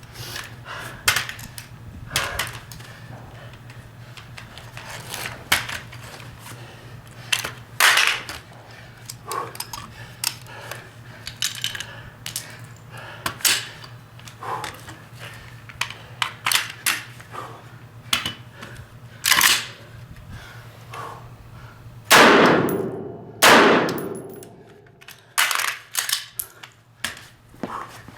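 AR-15-type carbine shots fired one at a time at uneven intervals, mixed with smaller clicks and clatter, the two loudest shots close together near the end.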